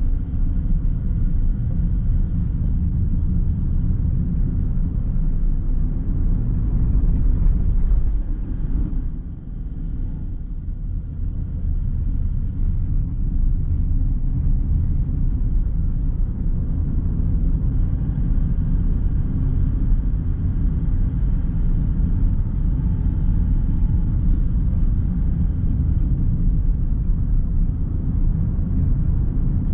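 Car driving: a steady low rumble of road and engine noise, easing briefly about nine seconds in before settling back to the same level.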